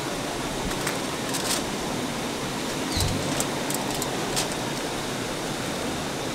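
Steady rush of river water, with a few sharp high ticks and short, high falling chirps over it.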